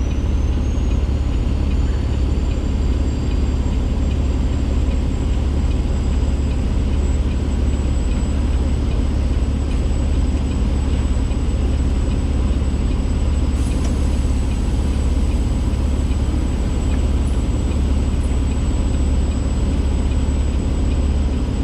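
Semi truck's diesel engine running steadily at low speed as the truck moves forward, heard from inside the cab as a deep, even hum. A faint high whine rises over the first couple of seconds and then holds steady.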